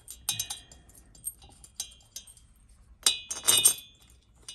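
Washers and 10 mm head bolts clinking against the finned cylinder head of an 80cc two-stroke engine as they are set in place by hand. A cluster of clinks comes just after the start and a louder one about three seconds in, with light ticks between.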